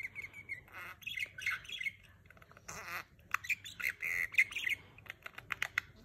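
Budgerigars chattering: a busy run of short chirps and warbles mixed with quick clicks, loudest about four seconds in.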